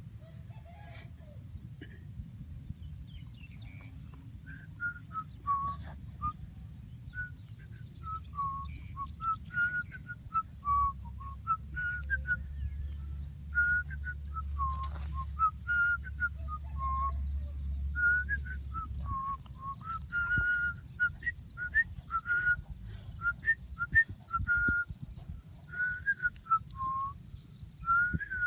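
A person whistling a slow tune: a long run of short held notes stepping up and down in pitch, starting a few seconds in.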